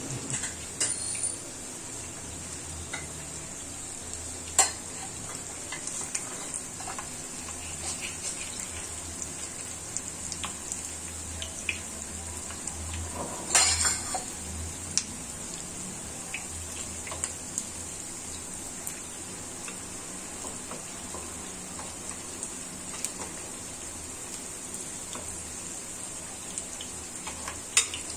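Unniyappam batter balls deep-frying in hot oil in a multi-cavity unniyappam pan, a steady sizzle throughout. Occasional clinks of a metal spoon and wooden stick against the pan as the balls are turned, the loudest clatter about halfway through.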